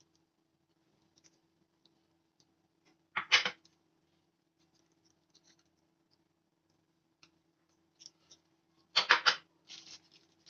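Two short bursts of scraping noise, about three seconds in and again around nine seconds in, with scattered small clicks between them over a faint steady hum.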